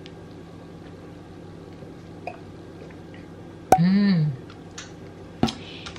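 Someone drinking from a small bottle of Yakult: faint liquid and mouth sounds of sipping, with a click and a short appreciative vocal sound a little before four seconds in, and another click near the end, over a low steady hum.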